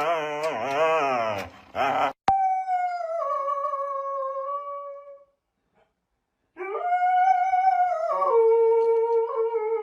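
A dog howling: a wavering howl for about two seconds, then two long drawn-out howls separated by a pause of about a second, each sliding down in pitch as it goes.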